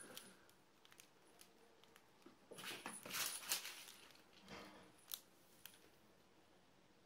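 A black-and-white cat and a ginger-and-white kitten wrestling on a cardboard floor: faint scuffling and scrabbling of paws and bodies on the cardboard, loudest in a flurry of scuffs about three seconds in, then a few lighter scuffs and a sharp tap.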